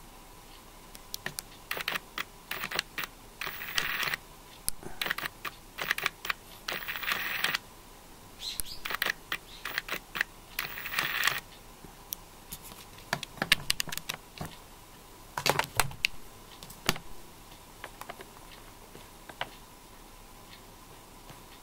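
A fork breaking into a chocolate chip muffin: crackly tearing of the crumb and clicks of the fork, in irregular bursts. Sharper scattered clicks come in the middle, and the sound dies away after about 17 seconds.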